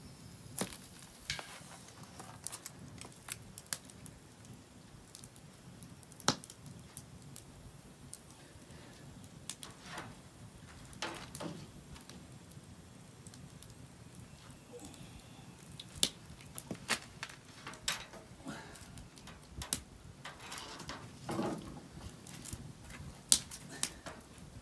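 Wood fire crackling in a wood-burning stove, with irregular sharp pops spread through and a few longer, softer scraping sounds.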